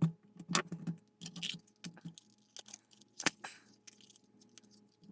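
Irregular clicks and taps of a plastic model kit's parts being handled and pressed together, over a faint steady hum.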